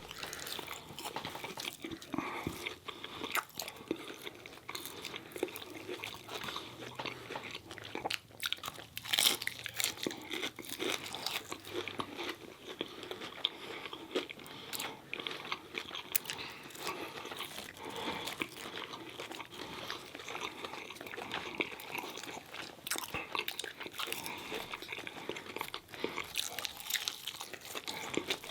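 Close-miked biting and chewing of crunchy fried food, with many irregular crunches.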